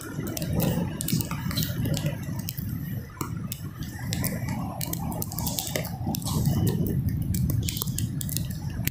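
Low steady rumble of wind and heavy surf on a muddy beach, with many small sharp ticks and wet squishes throughout.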